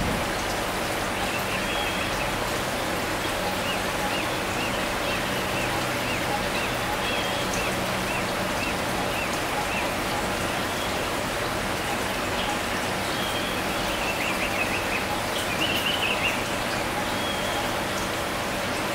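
Steady hiss of running water with a faint low hum beneath it. Faint high chirps come in quick runs, about two a second, through the first part and again near the end.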